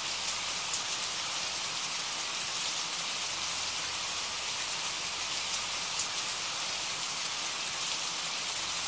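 Steady rain falling, a recorded rain ambience used as a sleep soundscape, with a few faint drip ticks.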